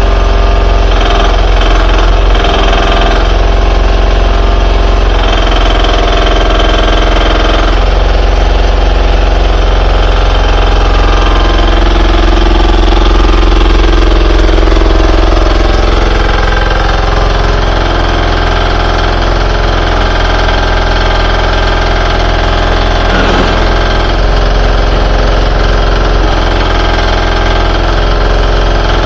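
1.2-tonne mini excavator's engine running loudly and steadily, its note shifting several times and easing slightly past the middle.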